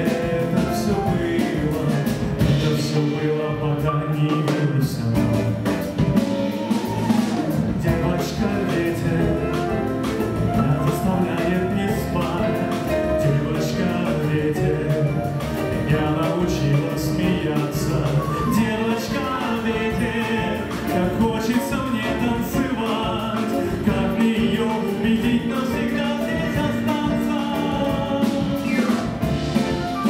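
A small jazz band playing live: electric guitar and upright double bass with a male voice singing over them.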